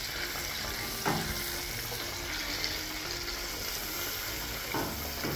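Butter and flour sizzling in a pan while being stirred into a roux, with two light knocks, about a second in and near the end.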